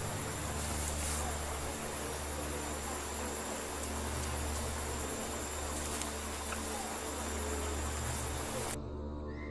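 Night-time insect chorus: a steady, high-pitched trilling over a low hum, cutting off abruptly near the end.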